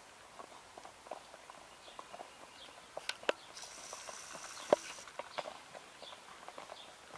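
Horse's hooves clopping at a walk, uneven hoofbeats with a few sharper knocks in the middle and a brief high hiss under them.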